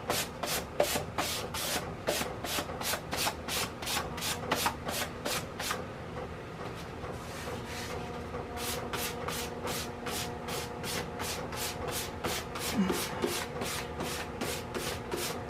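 1000-grit sandpaper rubbed lightly back and forth over a cured polyurethane finish, about three quick strokes a second, knocking down nibs to smooth the surface. The strokes pause for a couple of seconds partway through, then resume.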